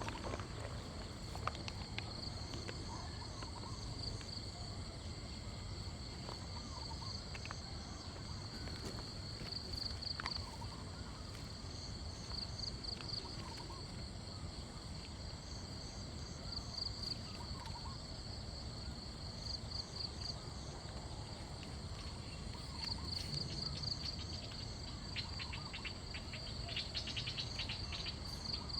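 Night insect chorus: a steady high-pitched trilling that pulses in repeated bursts and swells near the end, with faint scattered chirps and some low rustling beneath.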